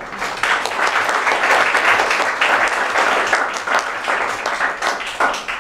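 Audience applauding: a dense, steady clapping that swells in at the start and eases slightly near the end.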